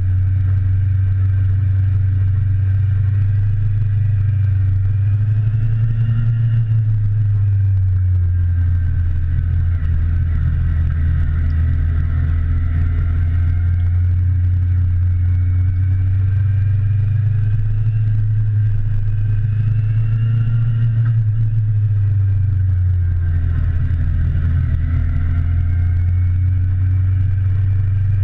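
The ridden motorcycle's engine running steadily at low speed, its pitch rising and falling gently several times as the revs change through the turns.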